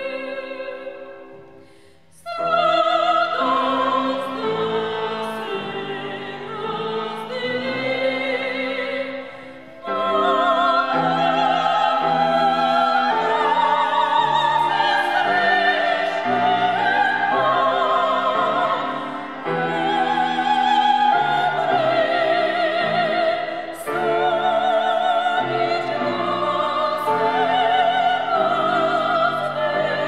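Two operatic sopranos singing together with vibrato, accompanied by cello and piano. A held note fades out about two seconds in, the singing picks up again at once, and it breaks off briefly near ten seconds.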